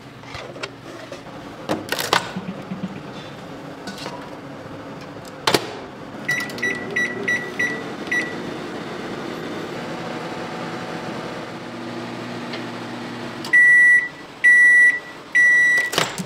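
A countertop cooking appliance in use: a couple of knocks, a quick run of short beeps as its buttons are pressed, a steady hum while it runs, then three long, loud beeps near the end signalling the cycle is done.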